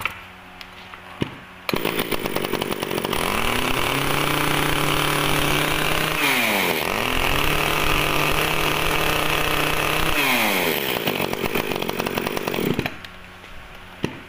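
A Ryobi two-stroke chainsaw, 32 cc with a 37 mm bore, catches about two seconds in after a few pull clicks. It is revved up and held high, dips briefly and revs up again, then falls back to idle and cuts off near the end.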